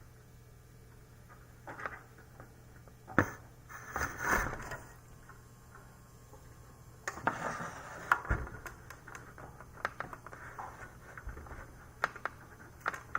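Hands working a computer's loose 24-pin power cable and connector: scattered sharp clicks and knocks with bouts of rustling and scraping.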